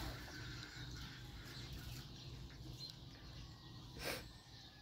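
Quiet farmyard background with a few faint, distant bird chirps and a short rustle about four seconds in.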